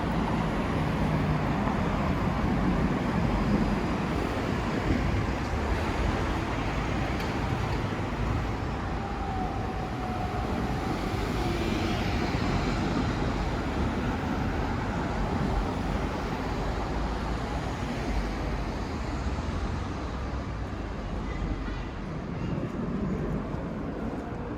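Steady road traffic noise of a busy city street: a continuous low rumble and hiss of passing vehicles, easing off slightly near the end.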